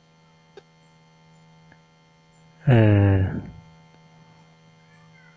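Low steady electrical hum, with a faint click in the first second. About halfway through comes a single short spoken syllable that falls in pitch.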